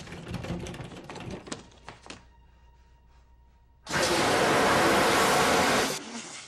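A hollow interior door cracking and splintering, with knocks, for about the first two seconds as it is broken through. After a short lull, a fire extinguisher sprays a loud, even hiss for about two seconds and then cuts off suddenly.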